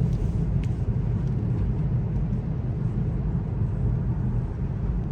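Honda Accord 2.0T on the move: a steady low rumble of engine and road noise heard from inside the cabin, with a faint tick or two in the first second.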